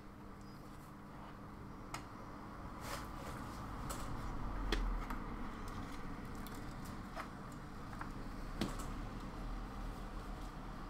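Light handling noise on a workbench as a soldered ESC board and its wires are worked on and set down: a few sharp clicks and small knocks, about six in all, over a steady low hum.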